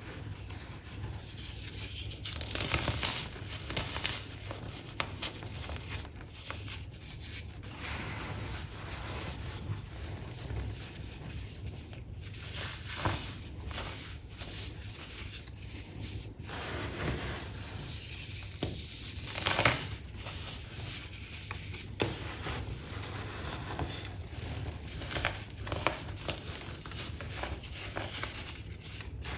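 Crunchy baking soda being crushed: an irregular run of crackling, crumbling crunches, with a few louder crunches, the loudest about twenty seconds in.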